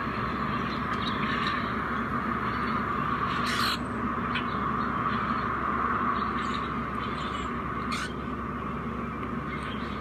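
Bird calls from a video of birds feeding, played through computer speakers over a steady hiss, with two sharp squawks a few seconds apart.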